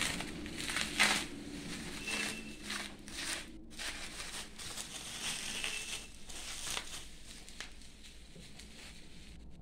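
Clear plastic wrapping being pulled apart and handled by hand: irregular crinkling and crackling, busiest in the first several seconds and quieter near the end.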